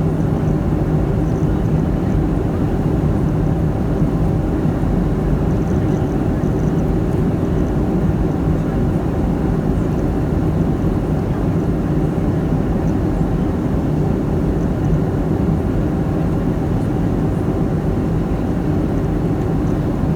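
Steady, unchanging roar of a Boeing 757-200 in flight, from its engines and the rushing airflow, heard from inside the aircraft.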